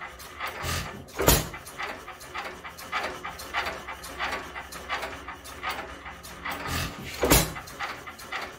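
International hit-and-miss stationary engine, modified, running under no load. It coasts with a soft rhythmic puffing and clicking about twice a second and fires with a loud bang twice, about a second in and near the end, six seconds apart.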